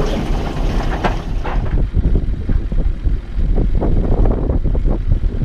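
Wind buffeting the microphone in uneven gusts over the low rumble of the boat's motor while trolling.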